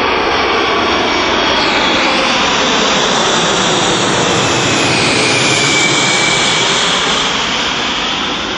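Antonov An-124's four Progress D-18T turbofans passing low overhead on landing approach: loud, steady jet noise with a high whine over it, easing slightly near the end as the aircraft goes past.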